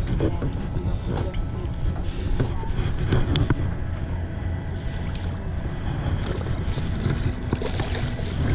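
Wind rumbling on the microphone over water lapping at the side of a small boat. Near the end there is splashing as a shovelnose shark thrashes at the surface beside a landing net.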